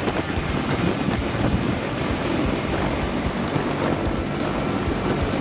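Helicopter in flight: a steady rush of engine and rotor noise.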